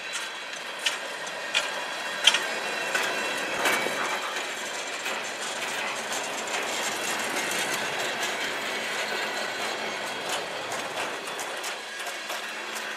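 Freight train cars, covered hoppers and boxcars, rolling past on steel wheels: a steady rumble and rattle with repeated clicks and clanks, including three sharp, louder clacks in the first few seconds.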